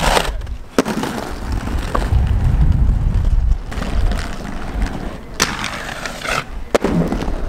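Aggressive inline skates rolling on pavement with a low rumble, and several sharp clacks as skates strike the ledge and the ground.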